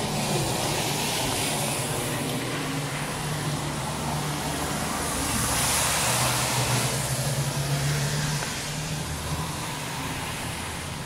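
Road traffic on a wet street: a steady engine hum, with tyres hissing over the wet road, the hiss swelling to its loudest about halfway through as a vehicle passes.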